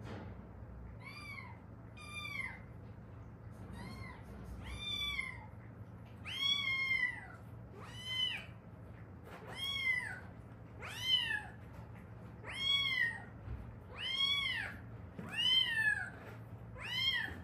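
A domestic cat meowing over and over, about a dozen short calls roughly a second apart, each rising then falling in pitch, growing louder after the first few.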